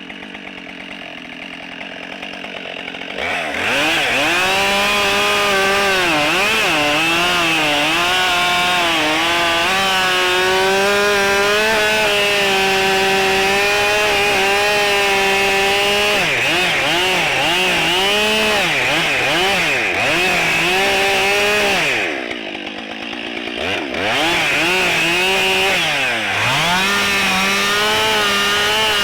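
Husqvarna 572XP two-stroke chainsaw idling, then opened up to full throttle about three seconds in and cutting big ash rounds. Its pitch dips and recovers as the chain bites into the wood. About three-quarters through it drops back briefly, then revs up and cuts again.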